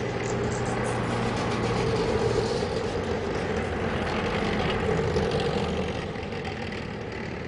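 A steady low rumble with a hum in it, swelling slightly and then fading toward the end.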